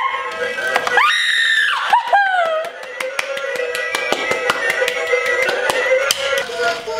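A toy candy claw machine plays its loud electronic arcade jingle. A person shrieks about a second in, and a shorter falling cry follows. Hand claps come through over the music.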